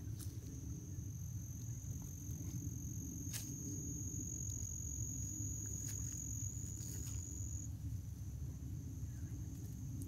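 An insect's steady, high-pitched, unbroken trill that cuts off abruptly about three-quarters of the way through, over a steady low rumble and a few faint ticks.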